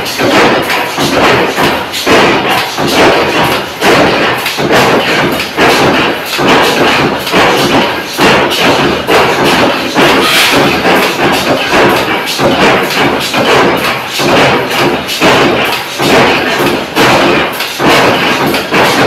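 Mechanical power press running a progressive die that makes M10 shield anchor fasteners: a continuous run of loud, sharp metal thumps as the ram strikes the strip stroke after stroke.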